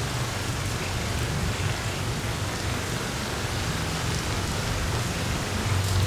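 Steady rain falling, an even, dense hiss of drops with a low rumble underneath.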